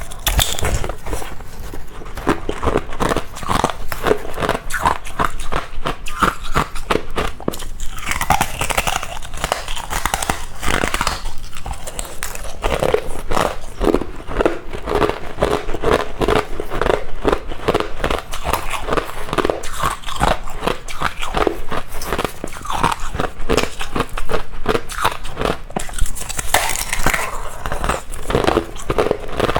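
Close-miked biting and chewing of freezer frost ("snow ice"), a continuous run of crisp crunches.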